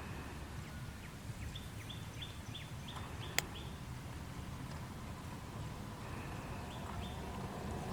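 A bird calling a quick series of short, high, downward-slurred notes, about seven in a row, then a few more near the end, over a steady low outdoor rumble. A single sharp click sounds just after the first series.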